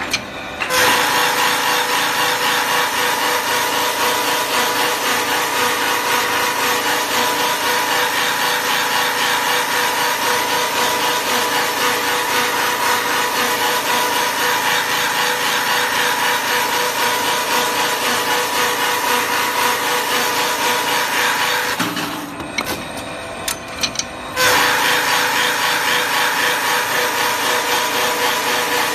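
Wooden pickaxe-handle shaping machine running, its rotating cutter head cutting a wooden handle blank with a loud, steady cutting noise and a constant tone. About three quarters of the way through the cutting drops away for about two seconds, then starts again.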